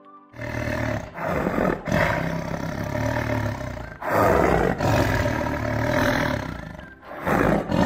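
A tiger roaring at close range, in a run of about five roars with short breaks between them. The loudest comes about four seconds in.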